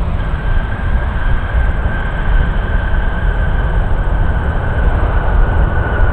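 Jet airliner's turbofan engines on landing: a loud, deep rumble with a steady whine that sinks slightly in pitch.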